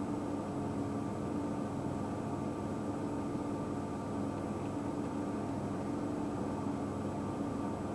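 Steady mechanical hum with several held tones over a constant hiss, unchanging throughout.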